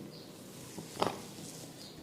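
A short pause in a head massage: faint handling noise from the barber's hands on the head and hair, with one soft brief contact sound about a second in.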